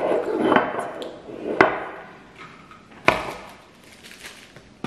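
A glass bottle and other items being handled and set down on a kitchen countertop: a few sharp knocks and clinks, the loudest about one and a half and three seconds in.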